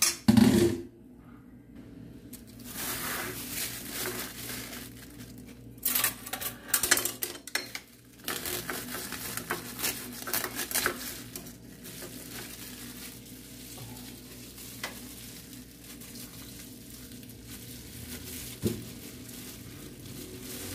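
A stainless-steel colander clanks twice against a steel kitchen sink, then comes a long stretch of handling noise: metal clinks and the rustle of a plastic bag as raw ground meat is emptied into the colander.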